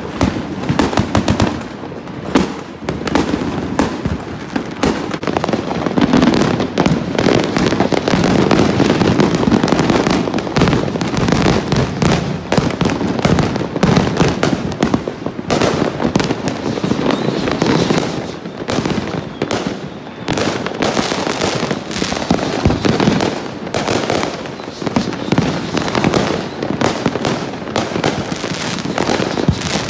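A dense barrage of consumer fireworks and firecrackers, many going off at once: continuous overlapping cracks and bangs of aerial bursts with no let-up.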